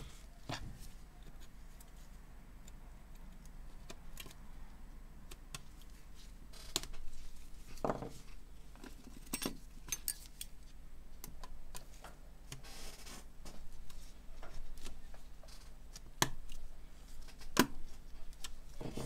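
Scattered light clicks and taps of an iPhone 7's logic board, housing and small metal parts being handled and fitted together by hand, with a pair of tweezers set down, over a faint steady low hum.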